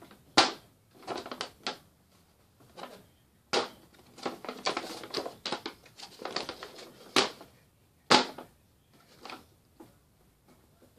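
A large thin printed paper sheet being handled and folded by hand: irregular rustling and crinkling with several sharp paper crackles, the loudest about half a second in and again near three and a half, seven and eight seconds.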